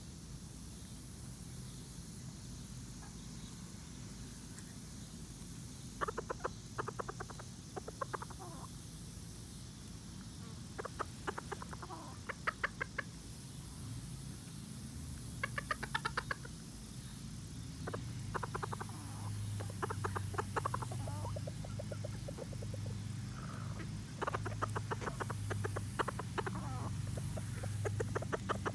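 Ko Shamo chickens clucking in repeated bursts of quick, rapid clucks, with pauses of a few seconds between the bursts.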